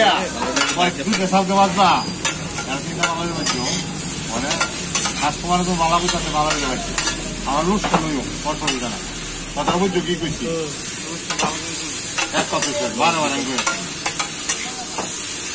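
Metal spatula scraping, knocking and stirring chopped onions and vegetables on a hot flat iron griddle, over a steady sizzle of frying oil. The strokes come quickly and unevenly throughout, some with a short squealing scrape of metal on metal.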